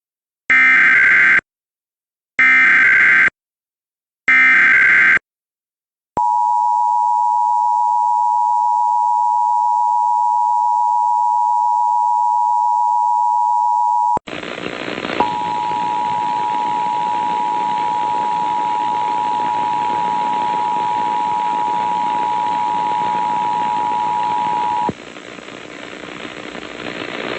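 Emergency Alert System tones: three short bursts of warbling SAME header data, then the EAS two-tone attention signal held steadily for about eight seconds. After an abrupt change the tone sounds again for about ten seconds over a hiss, and the hiss grows louder near the end.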